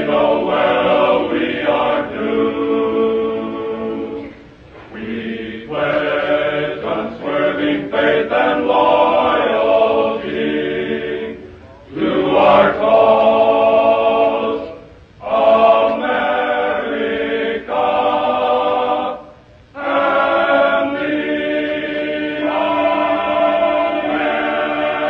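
Male choir singing a prayer hymn in phrases, with short breaths between them, and holding a long chord over the last few seconds.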